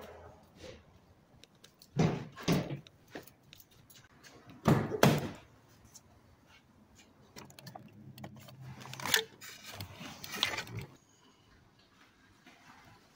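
Clunks and knocks from a car's rear door and interior being handled, several separate impacts with the loudest about five seconds in.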